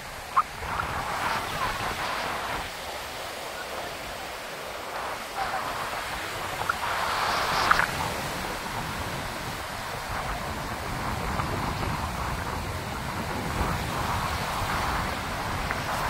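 Sea surf washing up the beach in surges that swell and fade every few seconds, over a low rumble of wind buffeting the microphone.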